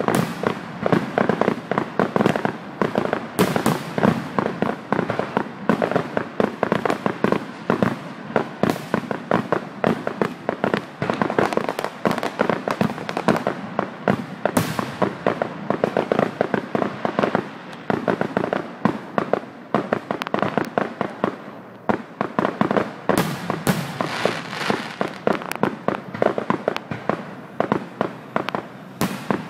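Aerial fireworks shells bursting in rapid succession, a near-continuous run of bangs and crackles that eases a little about two-thirds of the way through.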